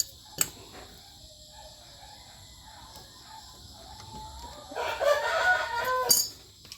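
A rooster crows once near the end, a call about a second and a half long, over a steady high hiss of insects. A single sharp click comes just after the start.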